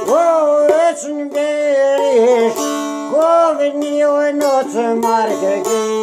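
A man singing a folk song while he plucks a long-necked fretted lute. The voice comes in two phrases that bend and waver in pitch, one at the start and one about three seconds in, over steady plucked notes on the lute.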